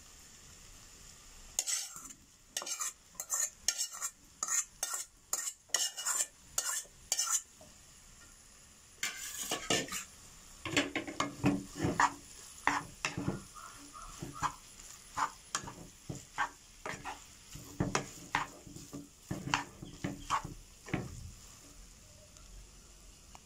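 Wooden spatula stirring and tossing boiled instant noodles into masala in a nonstick kadai: quick scraping and knocking strokes against the pan, over a faint sizzle of frying. The strokes start about two seconds in, pause briefly around the eighth second, then go on and thin out near the end.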